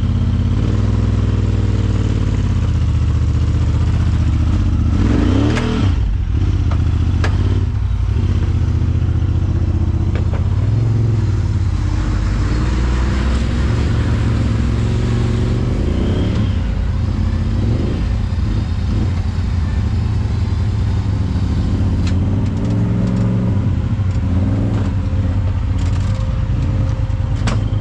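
Side-by-side UTV engine running steadily and revving up a few times while crawling over rough ground, with occasional clatter and knocks.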